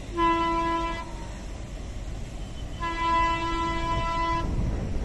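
WDM-3A diesel locomotive's horn sounding twice: a short blast, then a longer one about three seconds in. The low rumble of the approaching locomotive swells near the end.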